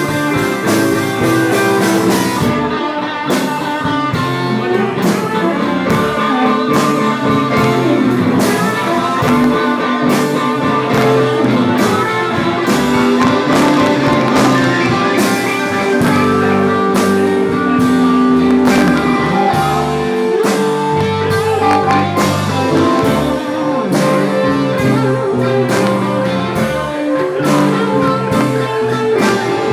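Live blues band playing an instrumental stretch: guitar, bass and keyboard over a drum kit keeping a steady beat.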